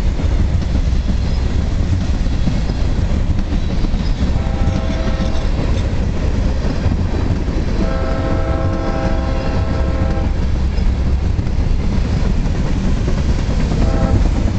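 Illinois Central freight train's covered hopper cars rolling past close by, with a steady heavy rumble and wheel clatter on the rails. Over it the locomotive's multi-tone horn sounds, fainter than the cars: a short blast about four seconds in, a longer one around eight to ten seconds, and another starting near the end.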